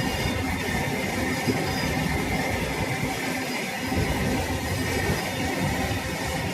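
Indian Railways train running along the track: a steady rumble at an even level.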